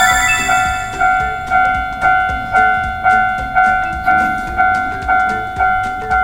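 Japanese railroad crossing alarm bell ringing its "kan kan" strike about twice a second, a two-tone ding that decays after each strike, over background music.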